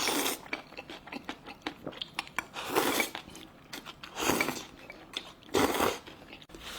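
A person eating close to the microphone: chewing with small mouth clicks, broken by four short, louder noisy bursts.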